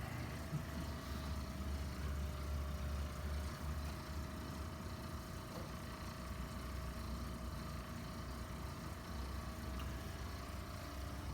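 A steady low mechanical hum, a little louder in the first few seconds, with a faint steady higher tone above it.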